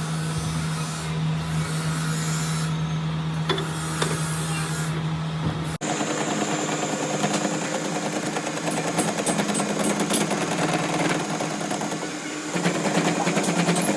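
Workshop machinery running steadily with a low hum. About six seconds in it cuts abruptly to a different machine sound, a rapid rattle over a steady higher tone.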